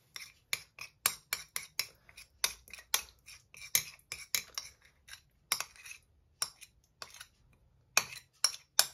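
Metal spoon scraping and clinking against a ceramic plate as sauce is scraped off it: a quick, irregular run of short clicks and scrapes, with a short lull shortly before the end.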